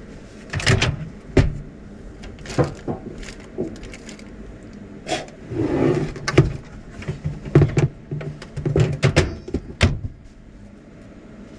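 Motorhome overhead locker doors opening and shutting and a glass bowl being taken out and handled: a string of sharp clicks, knocks and clunks.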